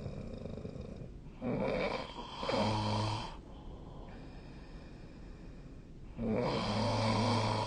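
A sleeping person snoring: two long snores, one starting about a second and a half in and one about six seconds in, each lasting a couple of seconds and ending in a low steady drone.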